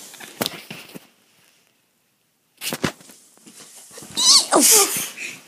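A sharp thump about three seconds in, then a child's loud, high-pitched squeal that wavers and falls in pitch near the end.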